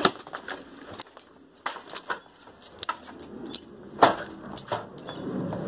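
Irregular sharp clicks and clatter, about one or two a second, with a louder knock about four seconds in.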